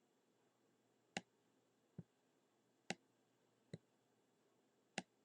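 Computer mouse clicking five times, about a second apart, some clicks sharper than others.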